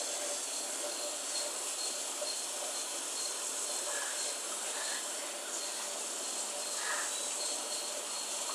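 Steady hiss, with a faint high-pitched insect trill pulsing through it.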